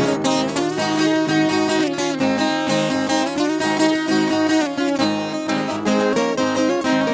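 Viola caipira, the Brazilian ten-string folk guitar, playing a quick plucked instrumental passage between sung verses of a moda de viola.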